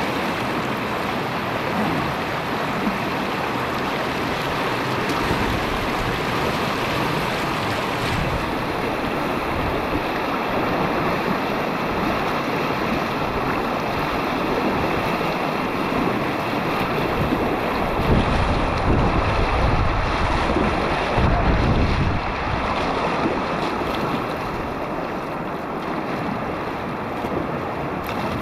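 Rushing whitewater of a river rapid close around a kayak, a steady churning roar, with wind and water buffeting the microphone; the buffeting is heavier for a few seconds about two-thirds of the way through.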